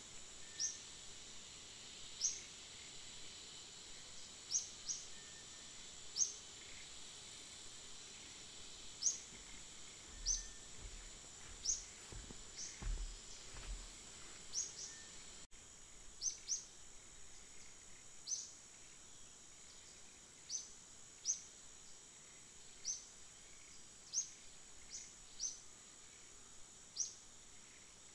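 Outdoor ambience: a steady, high-pitched insect drone, with a bird giving short, sharp chirps at irregular intervals of one to two seconds. A few soft low thumps come near the middle.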